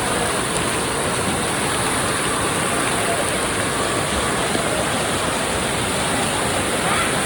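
Steady rushing-water noise with a faint din of distant voices, typical of an indoor water park's pools and water features.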